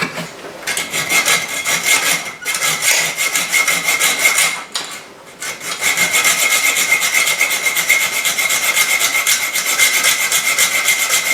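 Small hacksaw cutting a metal bolt to length: quick back-and-forth strokes with a steady metallic ring, broken by a short pause near the middle.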